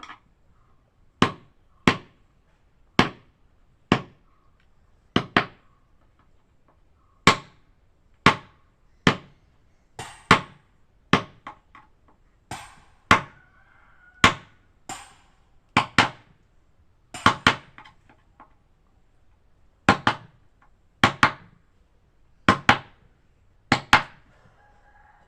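Hammer striking repeatedly, about one blow a second, often in quick pairs, with short quiet gaps between.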